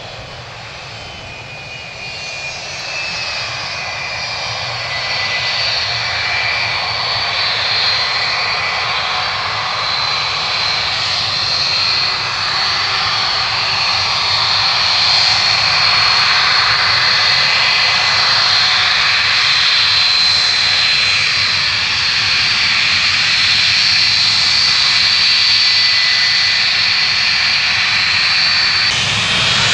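Boeing 757-200 airliner's two jet engines running at taxi power as it rolls and turns on the runway: a steady rushing sound with a high whine on top. It grows louder over the first fifteen seconds, then holds steady.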